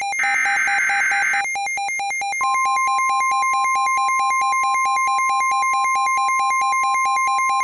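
NOAA Weather Radio emergency alert: a squawking burst of SAME header data in the first second and a half, then the steady 1050 Hz weather radio warning tone from about two and a half seconds in. Under it all runs a rapid, evenly pulsing electronic beep.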